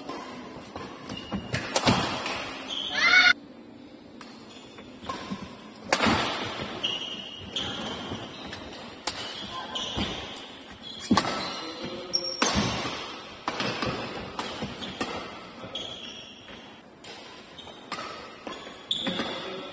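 Badminton doubles rally: rackets strike the shuttlecock in a string of sharp hits at an uneven pace, mixed with short high squeaks of court shoes on the floor.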